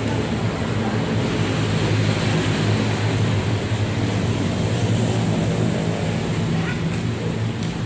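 Steady low rumbling background noise, with a couple of faint clicks near the end.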